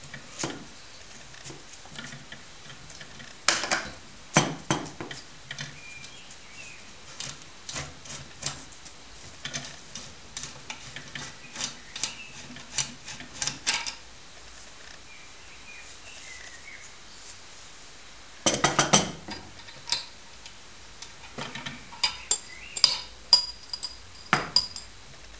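Metal parts of a JD-4 oil diffusion pump clinking and clattering as it is handled and taken apart by hand: scattered sharp clinks, with flurries of rattling about four seconds in, again after about eighteen seconds, and near the end.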